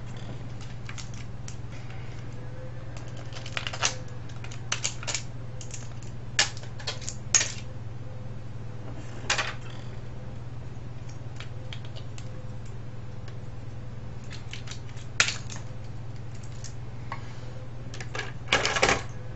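Small plastic and metal parts of a cassette recorder clicking and clattering as it is taken apart by hand: scattered light clicks with a few louder knocks, over a steady low hum.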